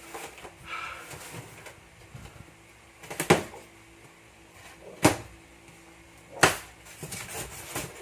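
Cardboard shipping box being cut open and handled: rustling and scraping, with three sharp knocks or rips about three, five and six and a half seconds in.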